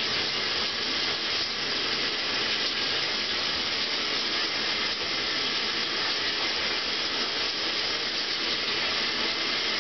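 Shower running steadily behind a closed curtain, the water spray making an even hiss.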